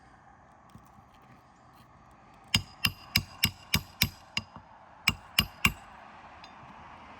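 Hammer driving a roofing nail into a replacement shingle. There are seven quick strikes, about three a second, then a short pause and three more, each with a brief metallic ring.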